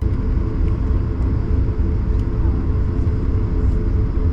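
Steady low rumble inside the cabin of an Airbus A220-300 airliner, engine and airflow noise from its Pratt & Whitney geared turbofans with a steady hum over it.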